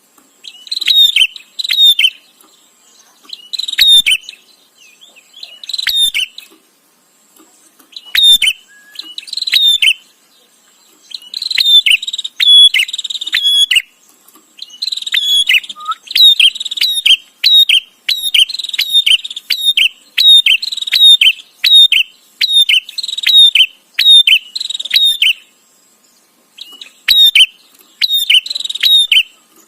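A prenjak (prinia) calling in bouts of sharp, rapidly repeated chirps, with short pauses between bouts. A faint steady high tone runs underneath.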